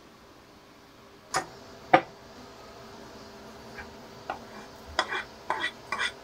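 Kitchenware clinking: two sharp knocks of dishes about a second and two seconds in. Then comes a run of light clicks, about two a second, as a metal spoon scrapes chopped onion off a wooden cutting board into a glass bowl.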